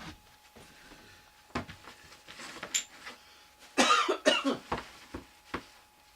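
A man coughs about four seconds in, a short loud burst. Around it come a few light knocks and rustles of things being handled.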